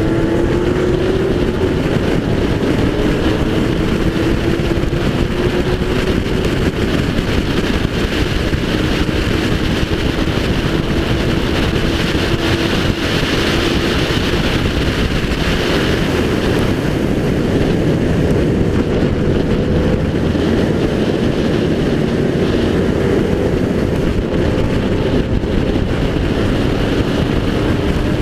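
Race car engine under hard acceleration, heard onboard; the engine note climbs slowly and steps down a few times, as at upshifts.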